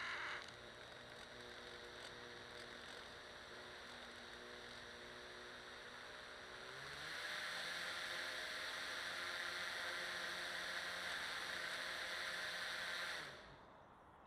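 A radio-controlled rescue boat's motor whirring, with water hissing past the hull, heard from a camera mounted on the boat. About seven seconds in the motor pitch rises and the water hiss grows louder, then both drop away near the end.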